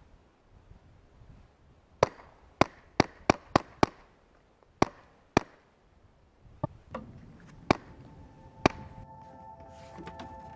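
About a dozen sharp, short cracks in quick, uneven succession, some less than half a second apart. Near the end, sustained ringing music tones begin.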